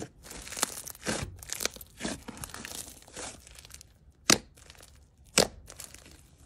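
Thick, foamy pink slime squished and pulled apart by hand, giving a run of sticky crackles and small pops as trapped air bursts. Two louder, sharper pops come about a second apart after the midpoint.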